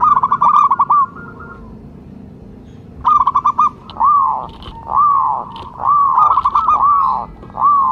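Zebra dove (perkutut) singing: a quick run of short staccato notes, a pause of about two seconds, another quick run, then a string of drawn-out cooing notes that rise and fall, about one a second.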